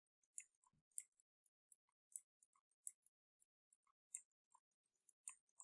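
Faint, irregular clicks, about ten of them, from a computer pointing device as it is worked.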